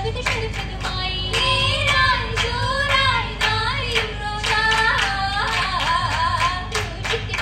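Oppana troupe of girls singing a Mappila song in chorus, kept in time by the dancers' steady rhythmic hand claps.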